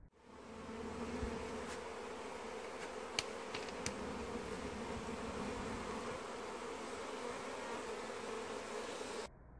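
Many honey bees buzzing around a hive entrance, a steady hum that cuts off suddenly near the end. A couple of sharp clicks about three to four seconds in.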